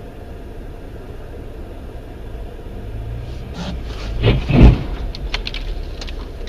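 Steady road and engine rumble inside a car's cabin, then a loud crash about four and a half seconds in as cars collide, followed by a few sharp clinks of debris.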